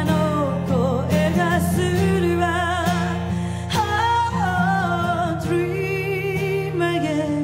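A woman singing a song live, holding long notes with vibrato, accompanied by acoustic guitar.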